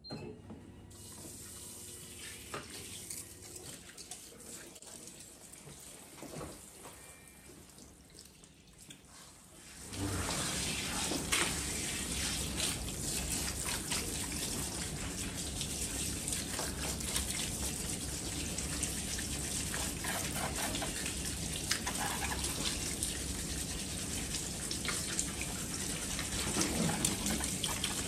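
Hand-held shower sprayer at a salon shampoo bowl, spraying water over a client's lathered hair and into the basin as the shampoo is rinsed out. The steady rush of water comes on suddenly about ten seconds in, after a quieter stretch of faint handling sounds.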